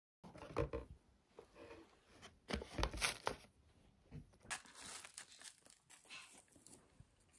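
Hands handling a pizza in its cardboard delivery box: a series of short rustles, tearing and knocks, the loudest about three seconds in, then softer rustling.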